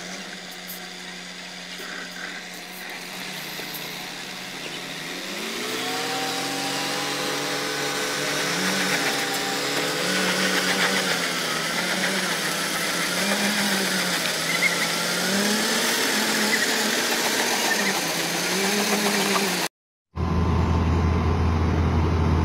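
Semi-truck's diesel engine revving under load while hauling a boat trailer up a ramp; its pitch climbs about five seconds in, then repeatedly swells and dips. Near the end it cuts off suddenly and a different engine, an excavator's, runs with a steady low hum.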